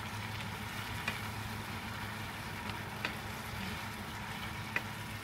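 Sliced tomatoes and onion sizzling in oil in a frying pan as they cook down until soft, with a few sharp clicks of wooden chopsticks against the pan as they are stirred.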